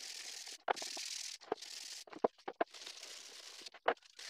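Hand brushing sanding dust off a freshly sanded hardwood cutting board: a series of dry swishing strokes with short pauses between them, and a few small clicks.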